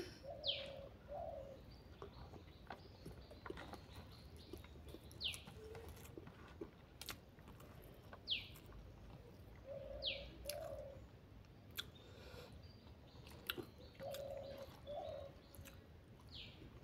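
Birds calling in the background: a dove cooing in short two-note phrases three times, and another bird giving short high whistles that fall in pitch, five times. Faint scattered clicks come in between.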